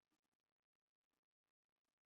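Near silence, with only very faint crackling.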